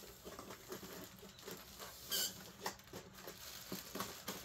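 Soft scattered taps and clicks of boxed Funko Pop figures being handled and set down, with one brief high squeak about two seconds in.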